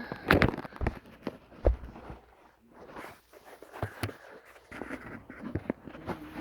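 Handling noise from small squishy toys being squeezed and moved about in the hand: irregular soft knocks, taps and rustles, loudest in the first couple of seconds.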